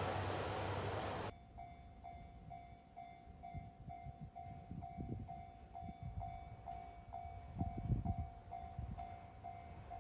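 A train's running noise cuts off abruptly about a second in. Then a Japanese railway level crossing warning bell rings steadily at about two strikes a second, with gusts of wind on the microphone.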